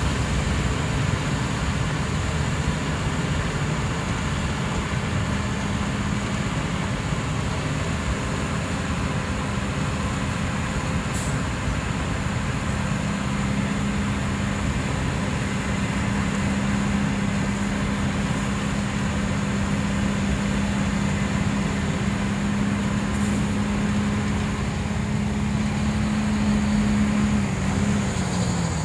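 Rotary snowplow running hard, its engine and blower casting snow through the chute into a dump truck: a steady, loud mechanical drone with a low hum that dips in pitch near the end.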